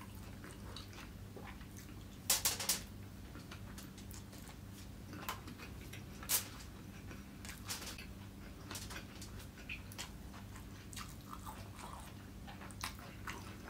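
Close-miked chewing and mouth sounds of a person eating fried rice by hand, with scattered wet clicks and smacks. A quick cluster of louder smacks comes about two and a half seconds in, and another sharp one around six seconds, over a faint steady hum.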